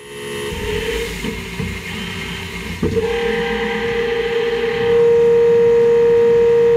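Nakamura-Tome WT-300 CNC turn-mill machine drilling a crankshaft under coolant spray: a hiss of coolant with a steady spindle whine. A click about three seconds in starts a higher, steady whine, which gets louder about five seconds in.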